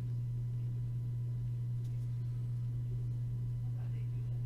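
A steady low electrical hum with no change in pitch, with faint rustling near the end.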